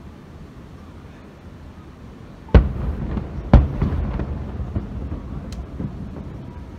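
Fireworks shells bursting overhead: two loud booms about a second apart, followed by a lingering rumble and a few smaller pops.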